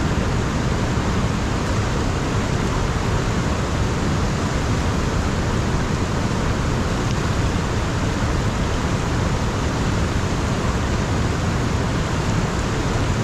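Steady rushing noise of wind and moving river water, with wind buffeting the microphone heavily in the low end.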